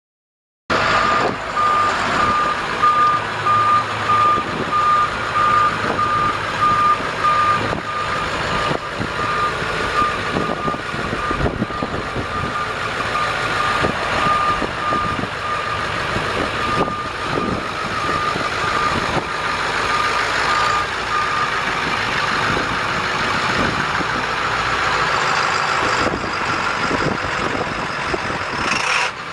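A 1998 International dump truck's T444 7.3-litre V8 diesel running as the truck is driven, with its backup alarm beeping steadily at one pitch while it reverses. The beeping stops about two-thirds of the way through and the diesel keeps running.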